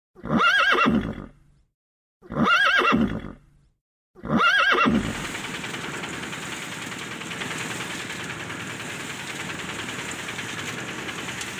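A horse whinny sound effect played three times in a row, each neigh about a second long with a wavering, quavering pitch, alike each time and separated by dead silence. From about five seconds in, a steady background noise follows.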